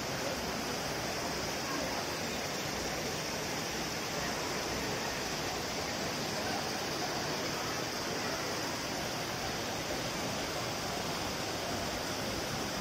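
Trevi Fountain's water cascading over its rock ledges into the basin: a steady, even rushing, with the faint murmur of a large crowd mixed in.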